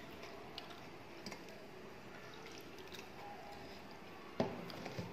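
Soft eating and hand-mixing sounds: wet squishing of rice and curry with small clicks, then dal poured from a ceramic bowl onto the rice. A sharp knock near the end is the loudest sound.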